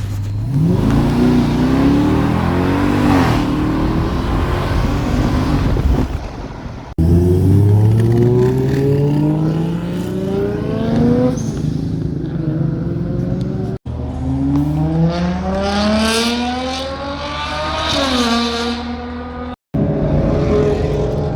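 Car engines accelerating hard, the pitch climbing steeply as they rev up, with a drop in pitch near the end of one run. This happens in three or four separate runs that cut off suddenly.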